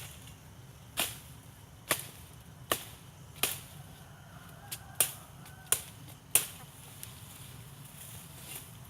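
A series of about eight sharp strikes, roughly one a second with a few closer together.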